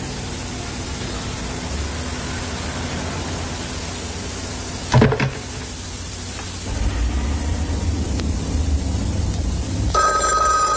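Steady hiss of an old film soundtrack, with a single sharp clack about halfway through as a telephone handset is lifted. Near the end a telephone bell starts ringing.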